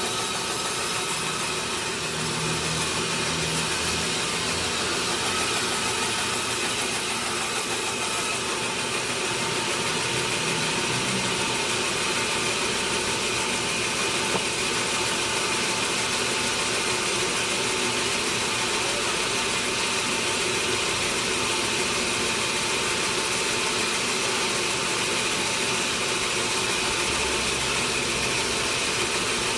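Sawmill machinery running steadily, an even mechanical noise that does not change in level.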